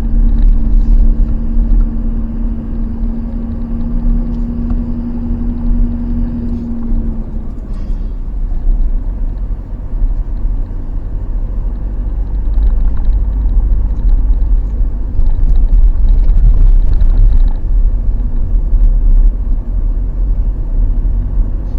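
Vehicle engine and road rumble heard from inside the cabin. A steady engine drone runs for about the first seven seconds, then fades into a broad, heavy rumble.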